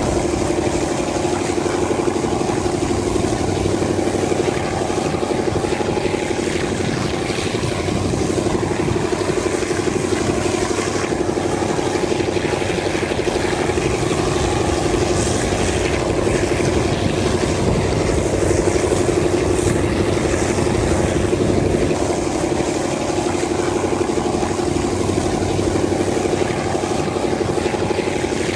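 TCDD DE 24000 diesel-electric locomotive's engine running steadily under power, heard from a coach window further back in the train, as a constant hum over a steady rush of running noise.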